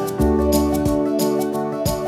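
Background music: guitar-led instrumental with a steady beat.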